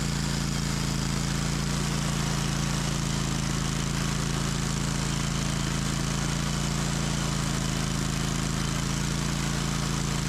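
Bandsaw sawmill running steadily under power at a constant engine pitch, during a cut through an oak log.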